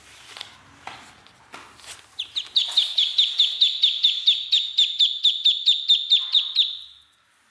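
A duckling peeping: a fast, even run of about twenty high peeps, each slurring downward, roughly five a second, starting about two seconds in and stopping near the end. Faint scattered taps come before it.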